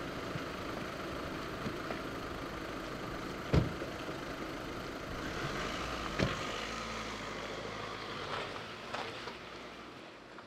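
Volkswagen car doors slamming shut, a loud thump about three and a half seconds in and a softer one about six seconds in, over a steady low outdoor rumble that thins out later and fades near the end.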